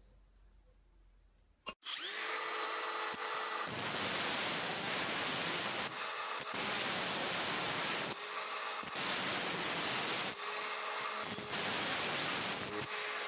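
Angle grinder with a cut-off disc switched on with a click about two seconds in and whining up to speed, then cutting through square steel tube. The cutting noise breaks off several times for moments of the free-running disc's steady whine, and the motor starts spinning down right at the end.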